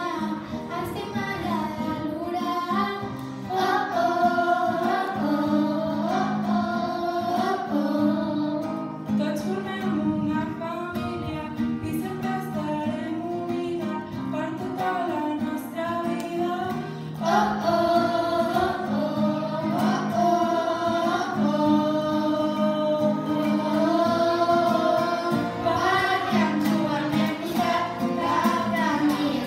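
A group of girls singing together into handheld microphones over backing music; the singing gets louder about seventeen seconds in.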